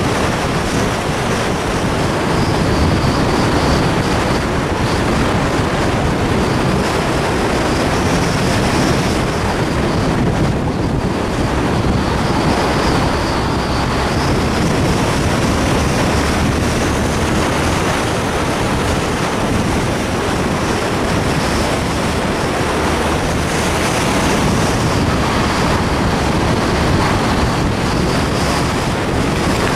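Steady wind rushing over the microphone of a camera mounted on the outside of a Porsche 944 as it drives along, with road noise beneath and no distinct engine note.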